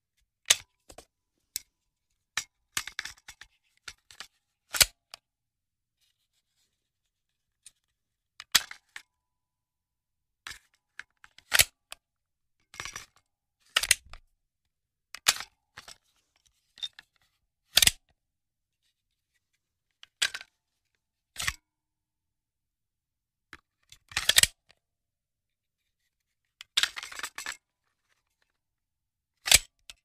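Handgun magazine being loaded and clicked into place: a series of sharp clicks, some followed by short rattles, at irregular intervals a second or more apart, with silence between them.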